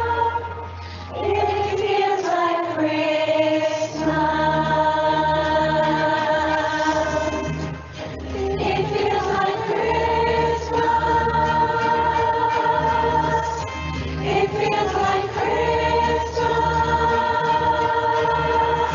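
A choir singing a Christmas song in long held notes, the chord moving to new pitches every few seconds.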